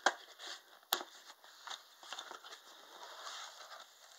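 Cardboard subscription box being handled and opened by hand: two sharp clicks about a second apart, then soft rustling and scraping of cardboard and paper.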